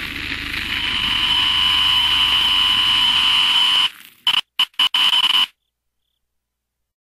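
Loud static noise with a steady high-pitched whine through it, breaking up into stuttering on-off bursts about four seconds in and cutting to dead silence at about five and a half seconds: a horror-style video-static sound effect.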